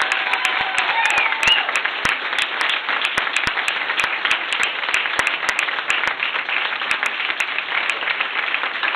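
Audience applauding steadily, a dense patter of many hands clapping, with a voice or two calling out in the first second or so.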